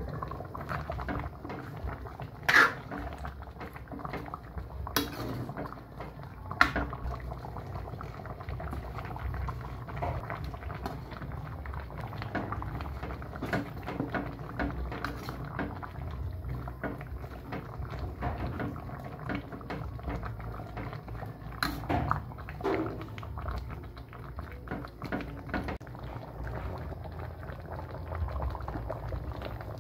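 Pork sinigang broth bubbling steadily in a pan on the stove. A few sharp clinks of the glass lid and the metal spatula against the pan come in the first seven seconds and once more about two-thirds of the way through.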